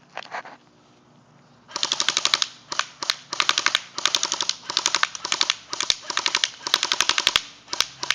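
Airsoft AK rifle firing on full auto in a string of short rapid bursts, starting a couple of seconds in.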